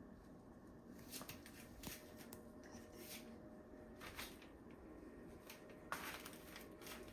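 Near silence, broken by a few faint, brief clicks and rustles spaced irregularly about a second apart, with a more marked one about six seconds in.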